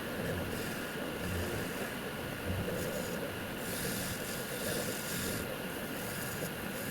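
Wood lathe running steadily, with the high hiss of a turning tool cutting the spinning wood fading and returning every second or so.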